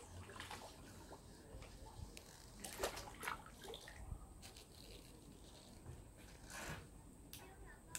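Faint sloshing and lapping of pond water, with a few brief, sharper splashy sounds about three seconds in and again near the end.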